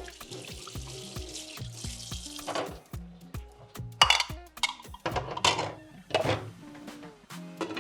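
Kitchen utensils knocking and scraping against a cooking pot, in about five sharp strokes after the middle. Before them a steady hiss runs for about two and a half seconds. Soft background music plays throughout.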